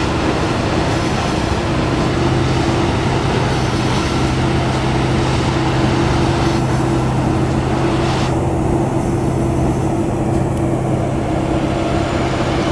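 Plasser & Theurer 09-16 CSM railway track tamping machine running, a loud steady machine drone with a lower hum joining about two seconds in. The high-pitched hiss above it cuts off about eight seconds in.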